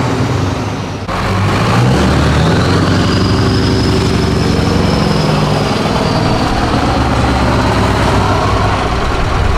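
Scania V8 truck engine with open exhaust pipes, running loud as the truck pulls past, its pitch rising a little and then easing back. A faint high whine rides over it in the middle.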